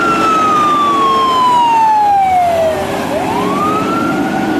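Fire department water tender's siren wailing: one slow fall in pitch over about three seconds, then a rise back up, over a steady low rumble.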